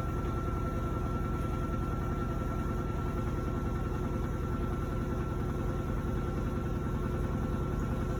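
Electrolux LPE16 washing machine running steadily while washing a load of four microfiber blankets: an even low hum with a thin constant whine above it.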